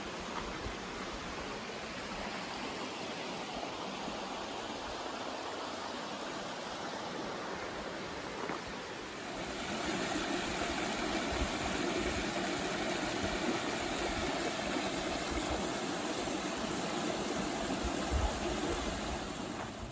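Water rushing steadily over a small concrete dam's spillway and splashing down between rocks. The rushing grows louder and fuller about nine seconds in.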